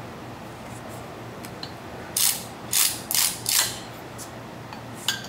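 Cordless electric ratchet spinning a bolt at the drive shaft's front flange in four short bursts, about half a second apart, a couple of seconds in.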